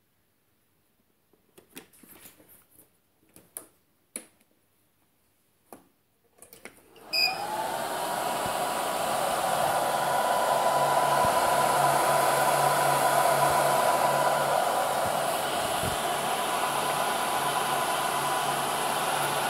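A few scattered clicks and taps, then about seven seconds in the cooling fans of an RC-battery charging case built around a Turnigy Reaktor QuadKore 4x300W charger start up. Their whine rises quickly and settles into a steady whir with a low hum beneath.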